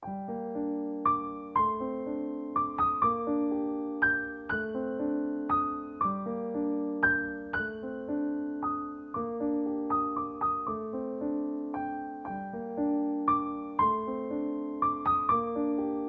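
Background piano music, a gentle piece of struck notes about twice a second, each fading out, over low held chords; it begins abruptly at the start.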